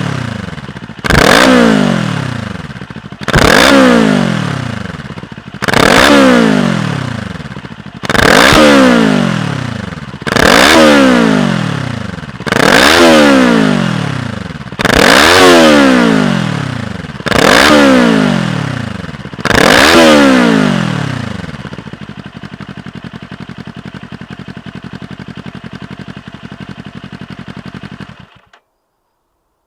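Kawasaki Eliminator's 398 cc parallel-twin engine breathing through a Moriwaki Cross Twin slip-on exhaust, revved nine times about every two seconds, each rev rising sharply and falling back. It then settles to a steady idle and stops abruptly near the end as the engine is switched off.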